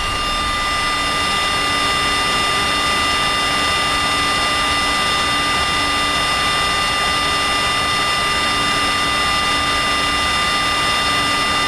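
Jet airliner engines running steadily: an even rush of air with several high, steady whining tones above it.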